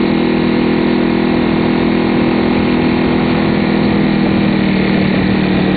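Cruiser motorcycle's engine running at a steady cruising speed on the highway, under a constant rush of wind and road noise.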